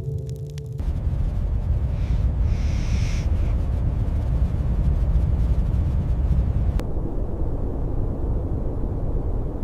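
Steady low roar of blizzard wind, with a brief higher hiss about two seconds in.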